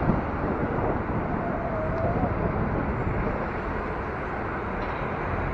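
Steady rush of wind and city street traffic heard from a moving electric bike, with a faint brief whine about two seconds in.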